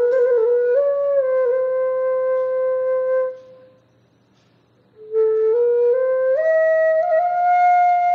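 Background music: a slow solo melody of long held notes. It breaks off for about a second and a half midway, then returns and climbs in steps.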